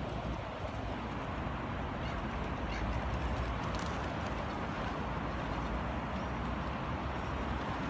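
Flock of pigeons and ducks feeding over a steady rushing background noise.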